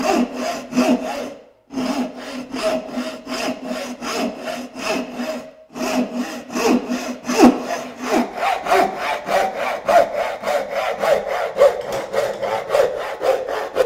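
Hand sawing through a wooden stretcher in rhythmic back-and-forth strokes, first with a small handsaw and then with a turning saw following a marked curve. The strokes stop briefly twice and come quicker in the second half.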